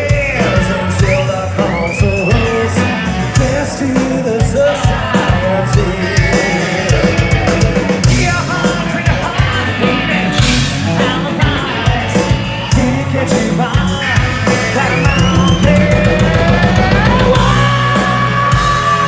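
Hard rock band playing live: a man's high, gliding vocal lines over electric guitar, bass and a drum kit, ending with a long held note.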